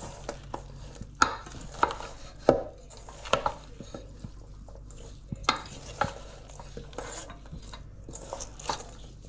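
Kitchen clatter: irregular sharp knocks and clinks of bowls, containers and utensils being handled, about a dozen taps spread unevenly through the stretch.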